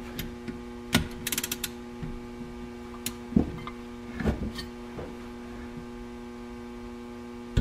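Torque wrench ratcheting and clicking in short runs and single clicks as the cylinder head bolts of an Arctic Cat 800 snowmobile engine are torqued down, over a steady electrical hum.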